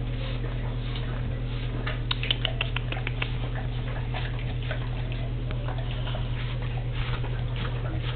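Boxer dog eating from a plate, licking and chewing with many small clicks as tongue and teeth work against it. About two seconds in there is a quick run of sharper clicks, all over a steady low hum.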